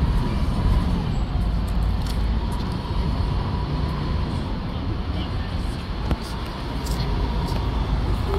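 Transit-style school bus engines running as the buses pull out and drive past close by, a steady low rumble with a faint steady whine above it.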